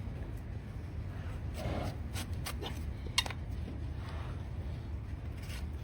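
A few sharp clicks and snaps from trimming tools cutting into a donkey's overgrown hoof, the loudest a little past the middle, over a low steady rumble.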